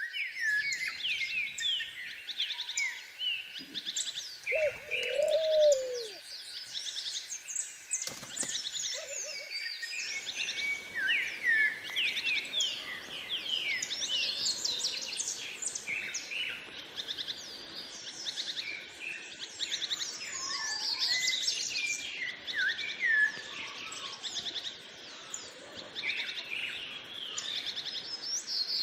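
A dense chorus of many small birds singing at once, rapid high chirps and trills overlapping without a break. A lower, arching call stands out about four to six seconds in.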